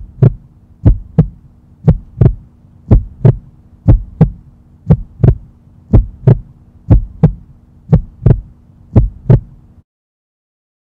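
Heartbeat, a steady lub-dub double thump about once a second over a low steady hum, cutting off suddenly about a second before the end.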